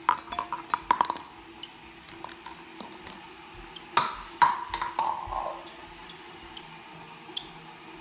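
Plastic cup clicking and tapping on a kitchen countertop as a parrotlet pushes it along, then two louder knocks about four seconds in, each followed by a short ringing.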